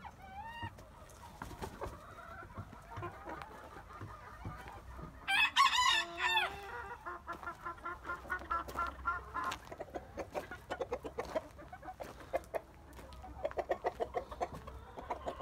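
A rooster crows once about five seconds in; it is the loudest sound. Chickens cluck in quick repeated notes before and after the crow.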